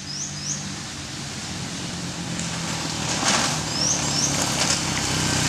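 Sidecar motorcycle engine running as the machine approaches, growing steadily louder. A bird chirps twice about four seconds in.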